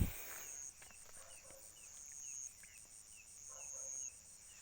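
Night insects calling: a fast, steady, high-pitched pulsing trill of about eight pulses a second, a longer high buzz repeating every second and a half or so, and faint short falling chirps. There is a brief low thump at the very start.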